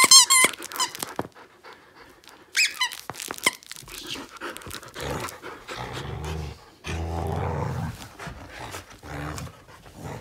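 Squeaky plush dog toy squeaking as a Samoyed bites it: a quick run of squeaks at the start and another about two and a half seconds in, followed by scuffling and panting as the dogs tug at the toy.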